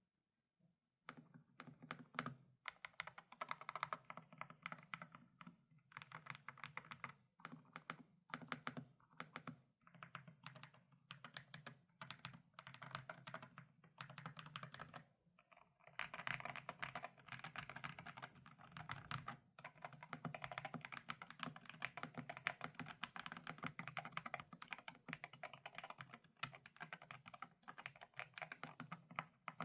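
Typing on a GMK67 mechanical keyboard with Akko V3 Pro Cream Yellow switches: rapid key clacks in short bursts separated by brief pauses, becoming a near-continuous run of keystrokes about halfway through.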